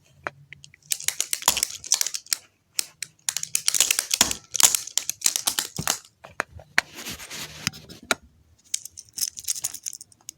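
Handling noise: bursts of rapid clicks and crinkling rustles starting about a second in, with a weaker patch near the end.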